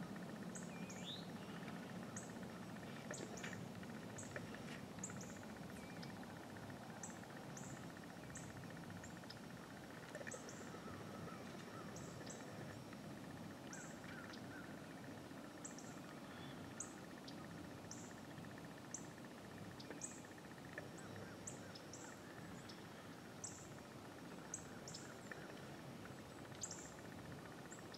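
Faint outdoor ambience: short, high chirps from small birds, about one a second at irregular intervals, over a steady faint background noise.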